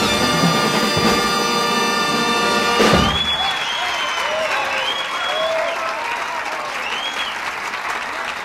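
A live big-band jazz recording with brass holds its final chord and ends on a sharp band hit about three seconds in. An audience then applauds and cheers, with several whistles.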